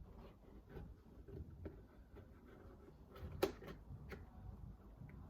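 Scattered light clicks and taps of plastic toy packaging being handled and opened, with one sharper click about three and a half seconds in.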